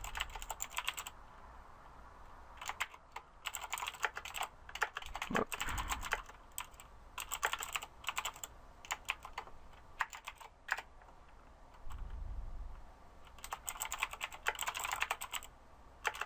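Computer keyboard typing in quick bursts of a second or two, with single key clicks in between, as code is written.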